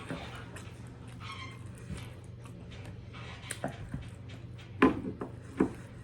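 A few light clicks and knocks of tableware while eating, scattered over a steady low hum.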